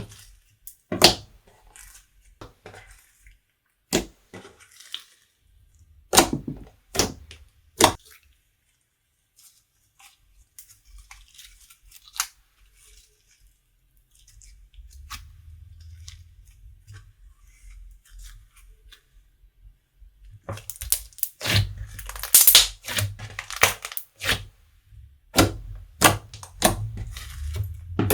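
Slime being squeezed, stretched and folded by hand, giving sharp pops and crackles. Single pops come every second or so at first, then a quieter stretch with a low handling rumble, then a dense run of crackling pops in the last several seconds.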